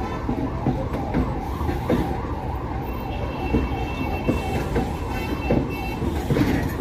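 Container freight wagons rolling past at close range: a steady low rumble, with the wheels knocking over rail joints about once a second. A high tone that wavers up and down about three times a second runs through it all.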